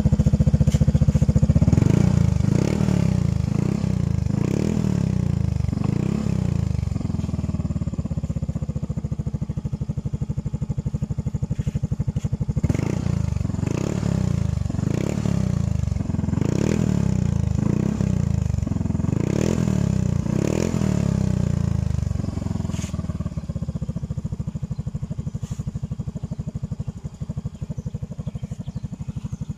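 Yamaha Mio i 125 scooter's single-cylinder engine running through an aftermarket Kalkal exhaust pipe, idling and revved in short repeated throttle blips: a run of blips a couple of seconds in, a second longer run in the middle, then back to a steady idle.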